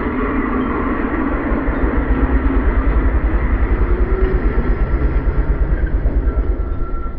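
Motorcycle engine running at a steady road speed, heard from the rider's own bike, with a fast, even low throb under rushing wind and road noise.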